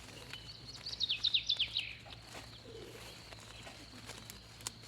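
A small songbird singing a quick run of about eight high, descending whistled notes about a second in, over a faint steady high-pitched tone.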